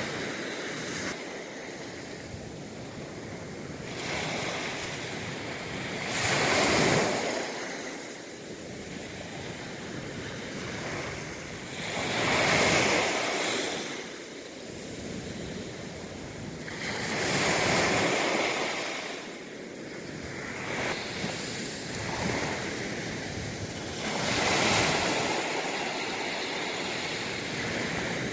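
Sea waves breaking on the shore, each one surging up and falling away, about every six seconds.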